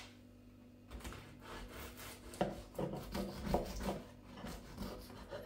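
Serrated bread knife sawing back and forth through a baked Scotch pie's crisp pastry crust on a wooden chopping board, a rasping stroke about two to three times a second.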